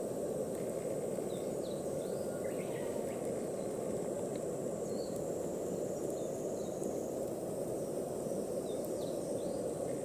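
Outdoor ambience: a steady rushing noise, with insects calling on one constant high note and a few faint bird chirps scattered through.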